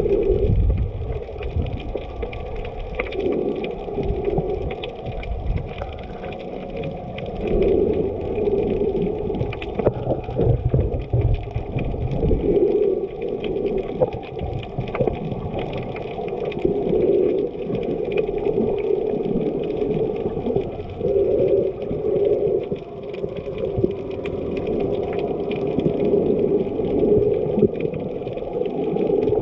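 Muffled sloshing and gurgling of seawater, heard at or below the surface while snorkeling, swelling and fading every few seconds.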